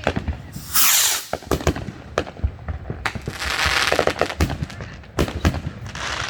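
Fireworks going off: many sharp bangs and crackles, with loud hissing bursts about a second in and again around three to four seconds.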